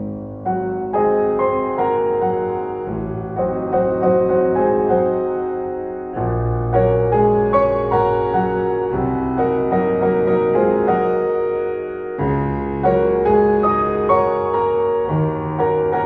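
Background piano music: sustained chords with a melody, the bass changing about every six seconds.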